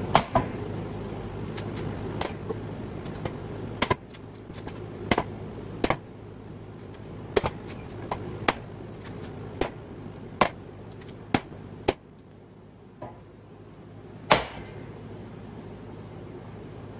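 Sledgehammer blows on the top of a 50 hp three-phase electric motor's rotor shaft, driving the rotor out of its cast end bell. About a dozen sharp metal-on-metal strikes come at an irregular pace, roughly one a second, with the loudest near the start and about 14 seconds in.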